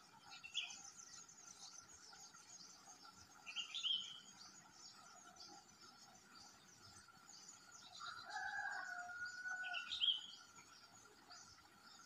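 Yellow-vented bulbul chirping at its nest: three short, sharp chirps, rising in pitch, about half a second, four and ten seconds in. A longer, lower call lasts about two seconds from about eight seconds in, over a steady high hiss of insects.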